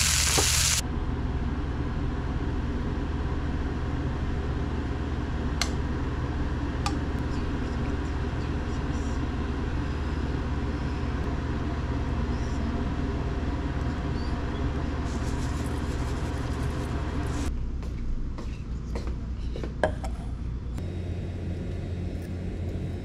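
Beef cubes sizzling in a frying pan, cutting off sharply under a second in. After that comes a steady low hum with a few faint clicks.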